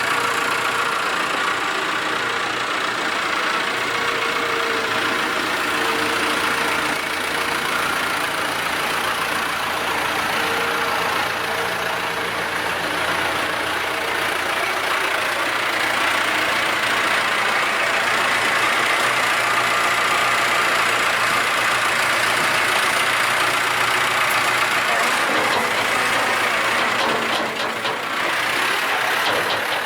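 Tractor engine running steadily, with a brief dip in level near the end.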